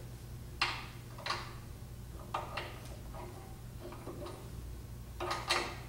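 Light metallic clicks and taps, irregular and a few at a time, with a quicker cluster near the end, from a Laguna LT14 SE bandsaw's lower blade guide assembly being adjusted by hand.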